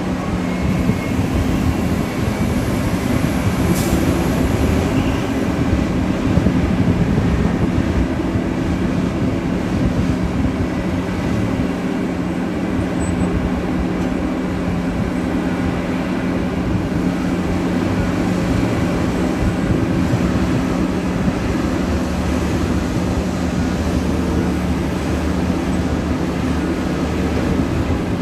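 Large diesel engines of heavy mining machinery running steadily: a continuous low drone with a level hum and no clear revving or impacts.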